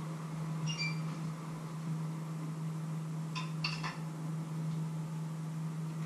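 Crockery clinking: one ringing clink about a second in, then a few quick clinks of a plate and metal spoon near the middle, over a steady low hum.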